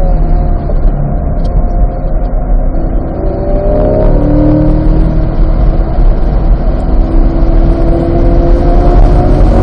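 C8 Corvette's V8 engine heard from inside the cabin, in third gear: the revs ease off into a corner and then climb again as the car accelerates out of it.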